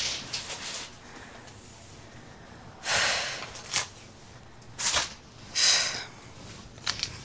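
A woman breathing heavily while moving about: after a quiet start, a series of short, loud breathy exhales about a second apart, of the laboured kind that comes late in pregnancy in the heat.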